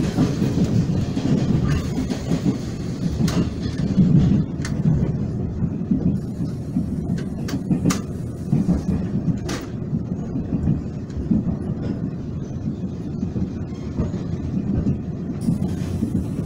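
Taiwan Railways express train running, a steady low rumble heard from inside the passenger car, with a few sharp clicks scattered through it.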